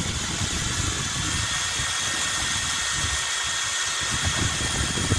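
Cordless drill running steadily with a stirrer paddle in a plastic jug, mixing concrete densifier with water, with a steady whine over an uneven low rumble.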